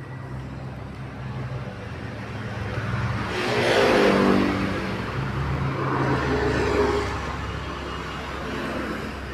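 A motor vehicle passes by, its engine rising to a peak about four seconds in and then fading. A second, fainter swell follows near seven seconds, over a steady low hum.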